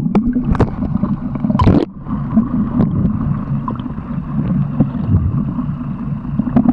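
Muffled underwater sound of water rushing and bubbling around a camera held below the surface, with scattered clicks and a short louder splash of bubbles about a second and a half in.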